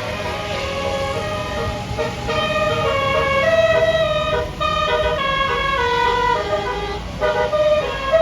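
Basuri multi-trumpet bus horn sounding a telolet tune: a run of short held notes that step up and down in pitch, several trumpets sounding together, over the low rumble of the bus engine.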